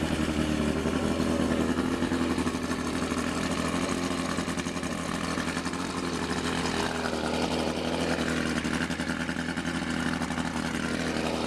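1985 Mercury 50-horsepower two-stroke outboard motor running steadily at idle, freshly started without the choke.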